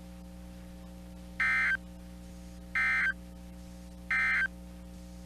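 Three short NOAA Weather Radio SAME digital data bursts, brief buzzy squawks a bit over a second apart: the EAS end-of-message code that closes the severe thunderstorm warning. A steady low hum runs underneath.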